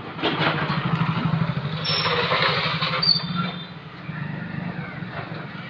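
Motor vehicle engine running close by, loudest for the first three seconds or so and then fading away.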